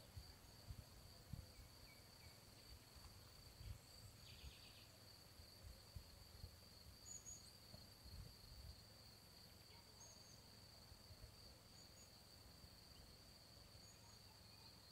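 Near-silent garden ambience: a faint, steady, high-pitched insect trill, with a few faint short high chirps and soft low bumps on the microphone.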